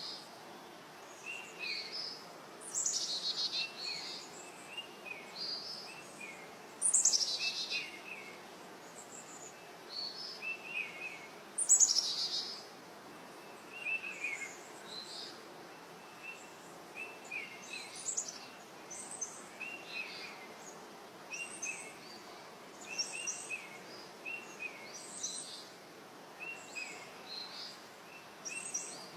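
Several wild birds calling and singing: a steady run of short chirps, with three loud, high, falling trilled notes about three, seven and twelve seconds in, over a faint steady outdoor hiss.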